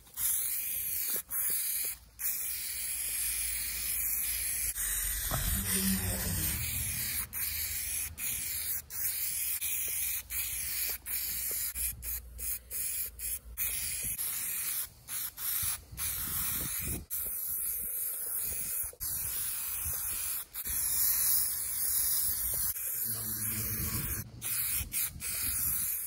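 Aerosol spray paint cans hissing in long steady bursts, broken by frequent short gaps.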